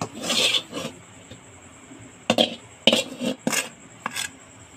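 Metal spoon scraping and knocking on a steel plate as cooked wheat-flour dough is pushed off onto it. A few short scrapes in the first second, then another run of scrapes and taps from about two and a half seconds in.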